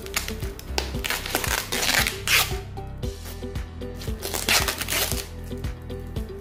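Background music with a steady beat, over the rustle and crinkle of a foam packing sheet being unwrapped from a glass bottle. The rustling is loudest from about a second in to two and a half seconds, and again near four and a half seconds.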